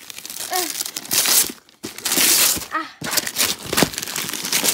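Printed Christmas gift-wrap paper being ripped and crumpled off a box by hand, in a run of loud rustling tears.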